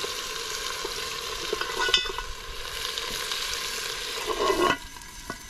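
Wood fire crackling and hissing under a hanging cast-iron Dutch oven, with scattered sharp pops. Near the end the heavy iron lid is shifted with a gloved hand in a short metallic scrape, and the hiss then drops away suddenly.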